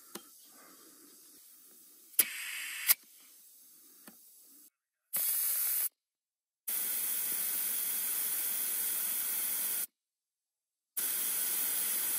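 Air hissing out of a car tyre through an ARB tyre deflator screwed onto the valve stem, the tyre being let down to about 33 PSI. It comes in separate bursts: a short, quieter one with a click at each end about two seconds in, a brief one, a long one of about three seconds, and another starting near the end.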